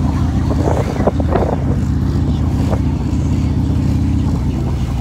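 Harley-Davidson motorcycle's V-twin engine running steadily while riding at low speed.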